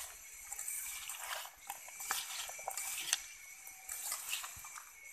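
A bare hand kneading and squishing a wet mash of jujubes with spices and herbs in a stainless steel bowl: irregular wet squelching, with a few short clicks against the metal bowl.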